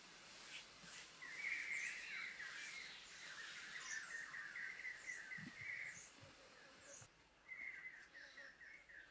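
Small birds chirping in quick repeated trills, in two runs with a pause of about a second between them. Under them, soft scraping of hands smoothing wet mud.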